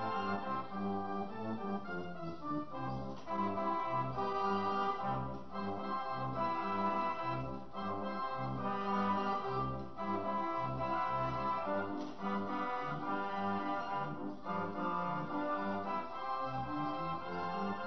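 Organ music: a rhythmic bass line under sustained chords, playing throughout.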